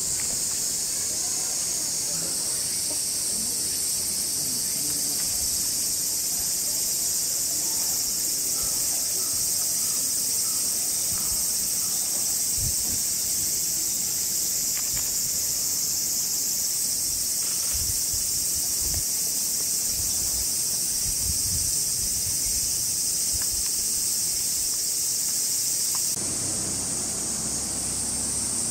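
A steady, high-pitched insect chorus buzzing, with a few soft low thumps in the middle.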